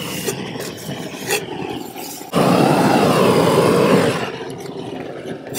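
Handheld roofing torch flame burning with a steady rush as it heats the lap seam of an SBS peel-and-stick cap sheet to weld it. It grows louder for about a second and a half midway, then eases.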